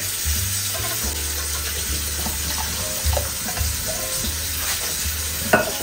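Pot of bean-and-vegetable chili sizzling steadily on the stove as water is added and a spatula stirs it, with a few faint scrapes.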